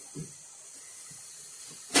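Someone drinking fizzy Sprite from a 2-litre plastic bottle: a couple of soft gulps near the start over a steady hiss, then a sudden loud noise right at the end.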